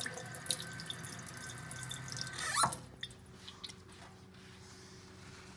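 Kitchen tap running into a stainless steel sink, shut off about two and a half seconds in with a falling sweep as the flow stops, then a few faint drips.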